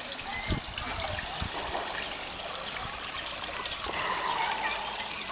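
Water trickling and splashing steadily as it spills over the small stone waterfall ledges into a koi pond.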